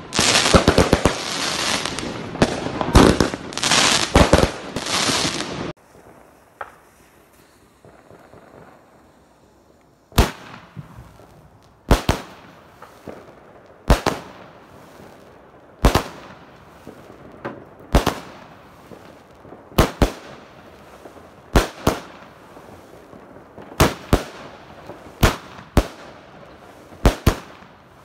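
Dense crackling and fizzing of firework stars for about six seconds, cut off suddenly. After a few quiet seconds, a Weco Pretty Heaven firework battery fires its shots one at a time, about every two seconds, a little closer together near the end.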